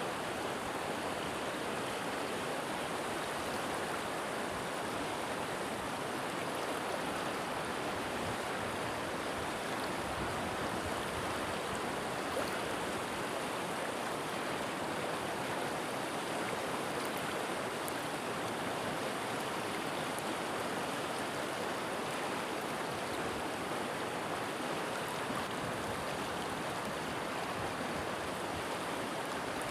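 River water flowing steadily, an even, unchanging wash of water noise.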